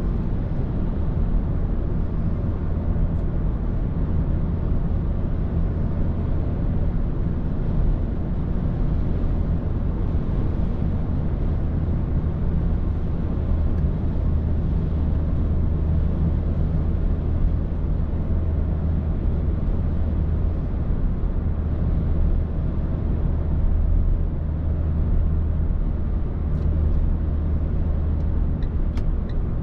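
Renault Captur TCe 1.2's turbocharged four-cylinder petrol engine and road noise while driving, a steady low drone with no revving. A few faint ticks come near the end.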